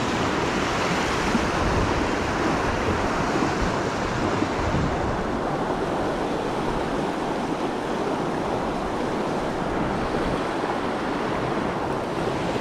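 Fast creek water rushing steadily through a riffle and small white-water chute.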